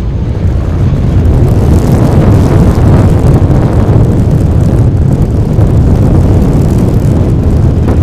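Strong gusting wind buffeting the microphone with a loud, fluctuating rumble, over the running turboprop engine of a Cessna 208 Caravan rolling along the runway.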